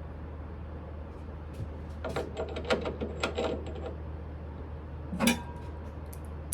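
Light metallic clinks and rattles for about two seconds, then one louder knock, over a steady low hum: metal parts and tools being handled at a lathe.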